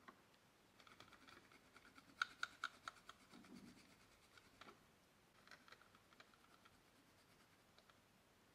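Faint scratching of an oil pastel stick on paper in short strokes, with a quicker, louder run about two to three seconds in and another short run around five and a half seconds.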